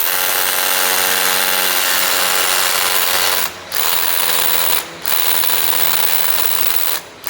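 Electric drill of a dual-purpose grouting-injection machine drilling a hole, run in three stretches with short pauses about three and a half seconds in and about five seconds in, stopping briefly near the end.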